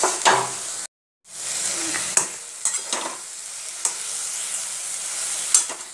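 Mashed brinjal sizzling as it fries in mustard oil in a kadai, with a metal spatula scraping and stirring it against the pan in short strokes. The sound cuts out completely for a moment about a second in.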